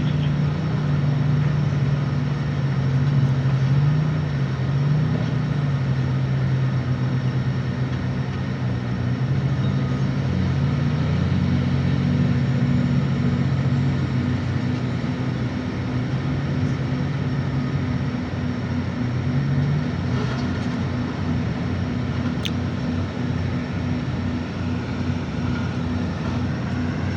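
Diesel engine of heavy earthmoving equipment running steadily under work, its low drone shifting slightly lower about ten seconds in.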